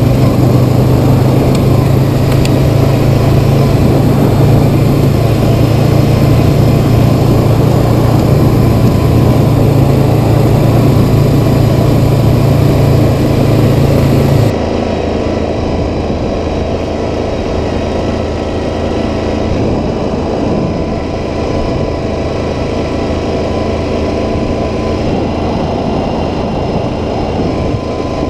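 A 2012 Honda Rancher ATV's single-cylinder engine running steadily at trail speed, with a loud low hum. About halfway through, the sound changes abruptly to the quieter, steady running of a 2019 Yamaha Kodiak 700 ATV's engine on the trail.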